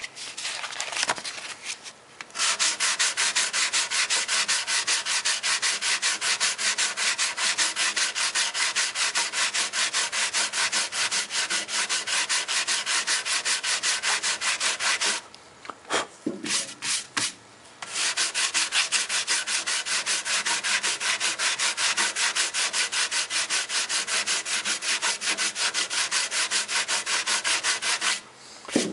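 Fine 400-grit sandpaper rubbed by hand over a dried wood-putty patch on a cello's wooden top, in quick, even back-and-forth strokes. This is fine-sanding the filler smooth. The strokes start about two seconds in, break off for a few seconds about halfway through, then resume.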